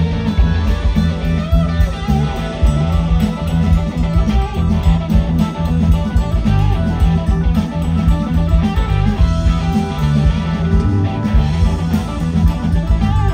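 Live blues-rock band playing loudly: an electric guitar lead with bending notes over drums and keyboard.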